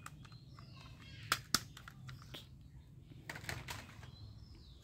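Light plastic clicks and taps as a toy rifle is handled and put down on a hard floor, with faint bird chirps in the background.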